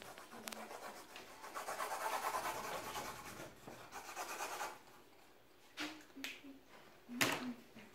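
Felt-tip markers scribbling on stretched canvas: a dense, scratchy rubbing for about three seconds. A few short vocal sounds follow near the end, the loudest about seven seconds in.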